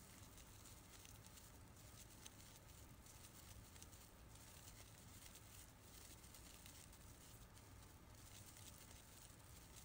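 Near silence with faint rustling and light ticks from hands working sparkly acrylic scrubber yarn with a crochet hook.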